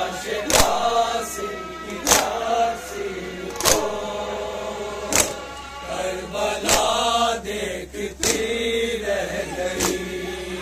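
Men chanting a noha, a Shia lament, together, marked by the crowd's hand strikes on their chests (matam) in unison, seven strokes about one every second and a half.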